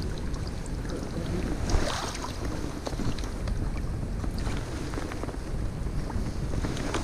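Wind buffeting the microphone over flowing creek water, with a brief splash about two seconds in.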